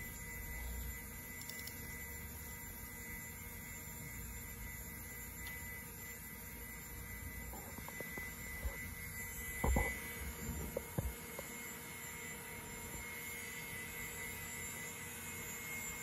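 IBM PC Server 315 running: a steady whir of cooling fans and spinning drives with a faint high whine. A few short clicks and knocks come about halfway through.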